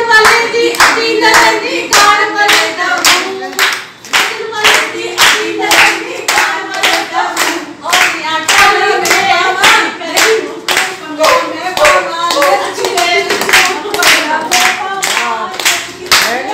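A group of women singing together, clapping their hands in a steady, even beat of a little over two claps a second.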